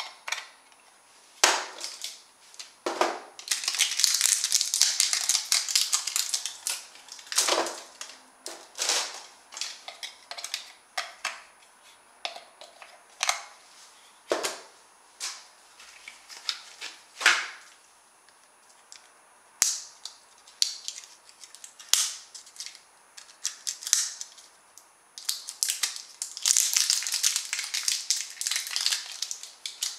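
AA batteries being handled at plastic RC transmitter battery compartments: repeated sharp clicks and knocks as cells are pried out, dropped and handled. There are two longer spells of rattling, about four seconds in and near the end.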